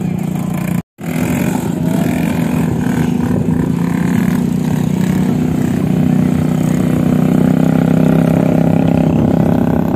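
Quad bike (ATV) engine running steadily close by, growing a little louder. The sound cuts out briefly about a second in.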